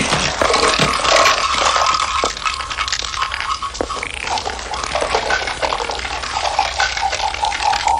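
Cans and plastic bottles spilled from a toppled shop display clattering and rolling, with scattered small knocks over a steady hiss.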